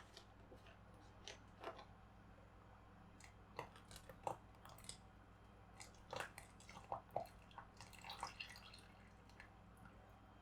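Faint, scattered light clicks and small knocks of kitchen things being handled, bunched in two spells in the middle, over a low steady room hum.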